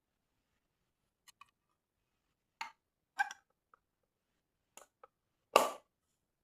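Small mechanical clicks and snaps from a West German-made Kodak 35 mm film camera being handled and worked, a few single and paired clicks followed by one louder snap near the end.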